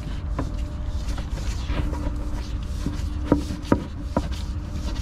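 Steady low machinery drone with a hum in an engine room, with several sharp clicks and knocks, two louder ones a little after three seconds in, as a spin-on oil filter is worked loose by hand over a plastic drain tray.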